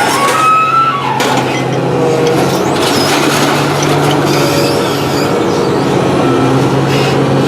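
Heavy scrapyard machinery running: a steady engine hum, with high squealing whines that rise and fall above it.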